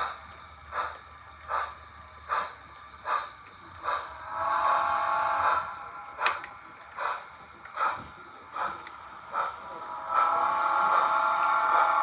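Model steam locomotive's onboard sound system playing slow, regular steam chuffs, about one every three-quarters of a second, while its whistle sounds twice: one blast of about a second and a half beginning about four seconds in, and a longer one starting about ten seconds in. A single sharp click comes a little after six seconds.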